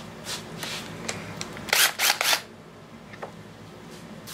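Metal hand tools clicking and clattering as they are handled, a few short sharp knocks with a louder cluster of three about two seconds in.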